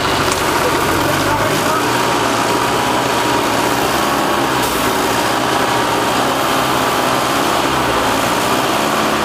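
Unimog engine running steadily as the vehicle crawls up a steep muddy bank on a tow strap, its note rising and falling slightly.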